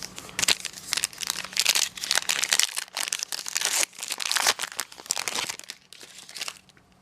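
Plastic trading-card pack wrapper crinkling and tearing in the hands, a dense irregular crackle that stops near the end.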